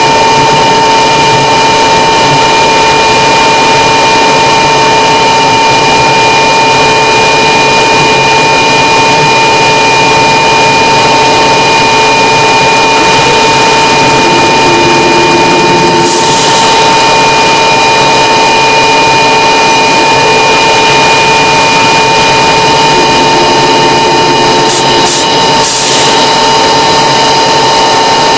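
Light aircraft's piston engine and propeller running steadily, heard loud from inside the cockpit as a constant drone with a high whine.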